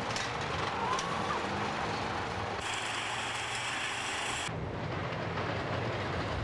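Wooden roller coaster train clattering and rattling along its track. From about two and a half to four and a half seconds in, a louder, hissier rush cuts in and then cuts off abruptly, as a car passes close.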